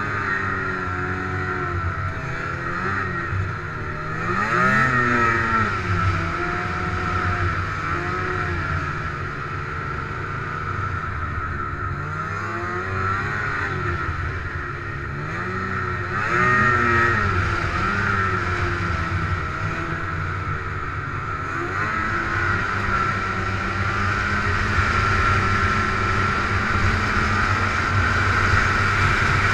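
Snowmobile engine running under way, its pitch rising and falling as the throttle is opened and eased off, with sharp rises in revs about four seconds in and again about sixteen seconds in.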